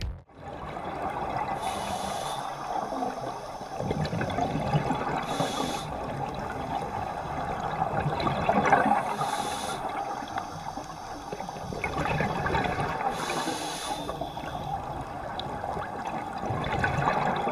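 Scuba diver breathing underwater through a regulator: a hiss with each inhalation about every four seconds, and bubbling, gurgling water between breaths.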